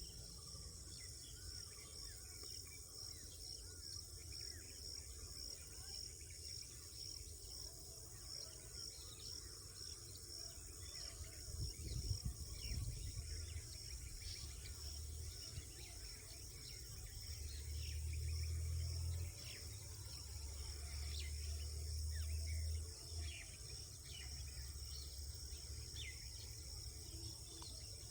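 Night insects chirping in an even, high-pitched pulse. A low rumble swells and drops off in stretches through the second half.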